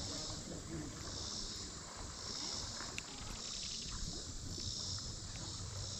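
Insects calling in an even pulse, swelling about once a second, over a low steady rush of outdoor background noise.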